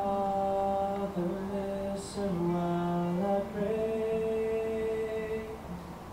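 A single voice singing a slow hymn, holding long steady notes that step between a few pitches; the last note fades out near the end.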